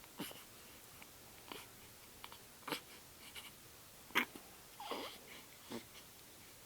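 Newborn baby hiccuping, a short sharp hic about every second and a half, the loudest about four seconds in. A brief squeak follows it, and small mouth clicks come in between.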